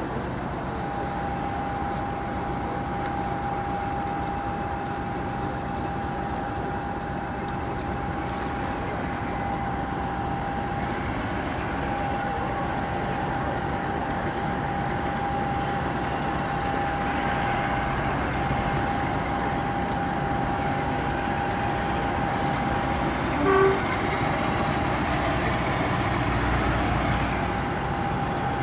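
Diesel locomotive engine running steadily with a thin steady whine over it, growing slightly louder, and one short horn toot about three-quarters of the way through.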